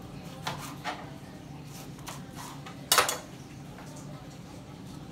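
A kitchen knife knocking against a cutting board while Brussels sprouts are cut: a few scattered knocks, the loudest about three seconds in, over a steady low hum.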